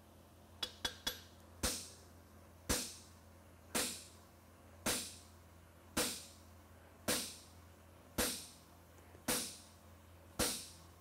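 Hammer blows on a handled fuller held against a red-hot steel horseshoe on an anvil: a few light taps, then nine evenly spaced strikes about one a second, each with a short metallic ring. The fuller is marking the fullering crease along the shoe.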